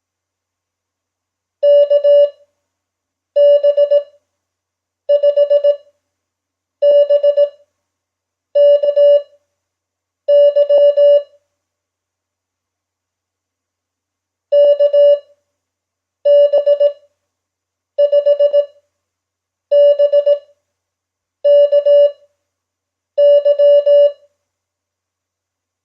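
Morse code sent as a single steady beep tone at 5 words per minute Farnsworth speed: each character keyed quickly as short and long beeps, with a gap of nearly two seconds between characters. Six characters, a longer pause about halfway through marking a word space, then six more.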